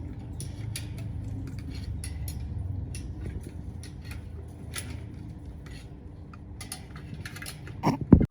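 Small metal parts and tools being handled, giving irregular light clicks and clinks over a steady low hum; two loud knocks close together near the end.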